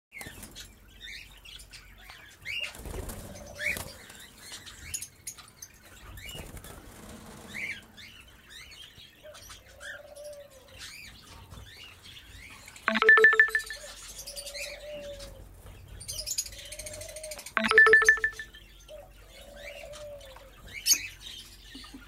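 Caged white cockatiels chirping with short, high calls, with bursts of wing flapping in the first half. Past the middle come soft low arched calls repeating, and twice a loud harsh buzzing call, the loudest sounds.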